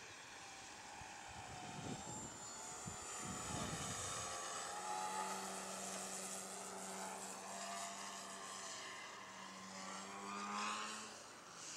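Graupner Kadett RC plane's brushless electric motor and propeller whining in flight, the pitch sliding up and down as the plane passes; the whine swells loudest near the end.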